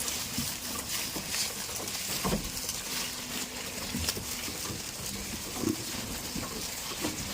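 Goats on a farm making scattered short knocks and shuffling sounds over a steady faint background hiss, with no clear bleat.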